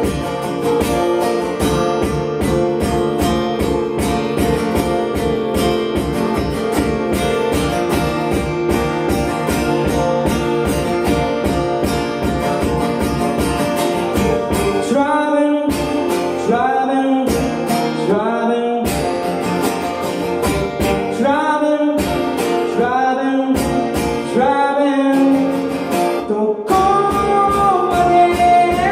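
Music: strummed acoustic guitar with a steady beat, and about halfway through a gliding melody line comes in over it.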